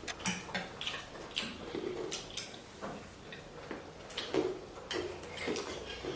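Close-up eating sounds of chicken thukpa noodle soup: irregular mouth noises, chewing and slurping, with small clicks, likely utensils against the bowl.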